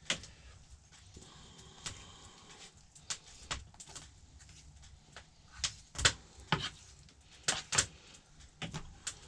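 Knife cutting moose meat into chunks on a cutting board: a string of irregular, sharp taps as the blade strikes the board.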